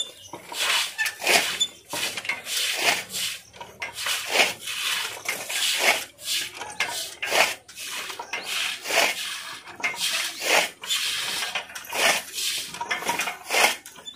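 A short hand broom of coarse grass stalks sweeping water and muck across a wet brick-and-earth floor: quick repeated swishing, scraping strokes, a bit more than one a second.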